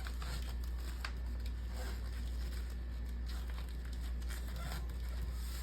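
Faint rustling and a few light taps of a paper candy-bar wrapper being handled, over a steady low hum.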